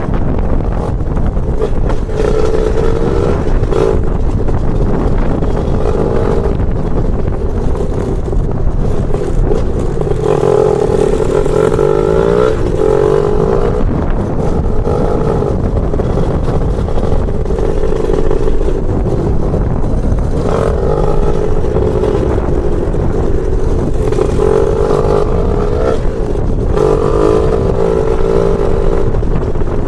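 Lambretta scooter's BFA 325 two-stroke engine running under way. Its note swells and climbs in pitch several times as it is revved through acceleration, then eases back in between.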